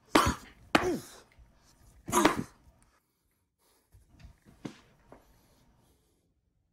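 A person's short, loud vocal outbursts: three sharp cries in the first two and a half seconds, then a few fainter ones about four to five seconds in.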